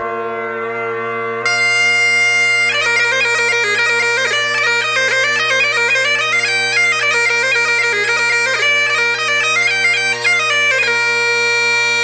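Bagpipes: the drones sound alone, more drone tone joins about a second and a half in, then the chanter plays a quick melody over them for about eight seconds before stopping, leaving the drones sounding.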